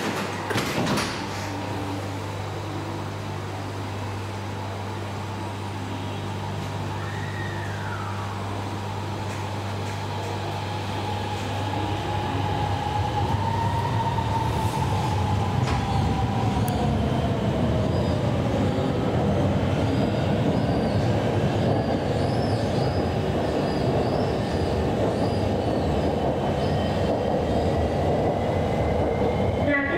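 Elevated metro train heard from inside the passenger car: a knock about a second in as the doors shut over a steady low hum, then the train pulls away, an electric motor whine gliding in pitch and the rumble of wheels on rails growing louder as it gathers speed.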